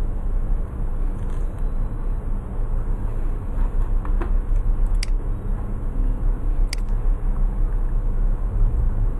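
Steady low hum and rumble of background noise, with a few faint clicks around the middle.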